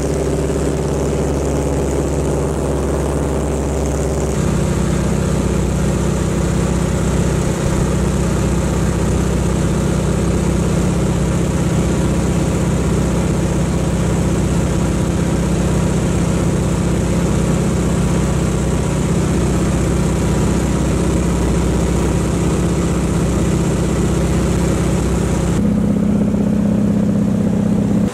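Single-engine floatplane's piston engine and propeller running steadily, heard from inside the cockpit. The engine note shifts abruptly about four seconds in and again near the end.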